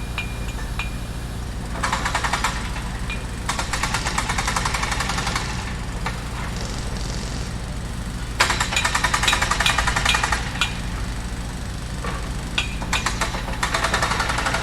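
Construction site: a machine engine runs steadily underneath while a jackhammer pounds in several bursts of rapid hammering, each one to two seconds long. Short metallic clinks are mixed in.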